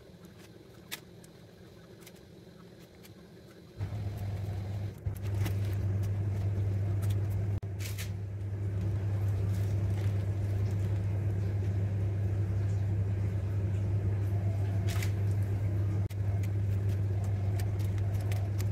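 A steady low machine hum starts suddenly about four seconds in and runs on, with a few light clicks and taps on top.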